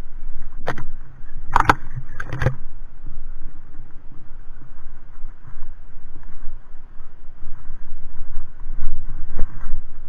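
Wind buffeting a moving camera's microphone, a steady rumble, with three sharp knocks in the first few seconds, typical of the camera jolting over bumps.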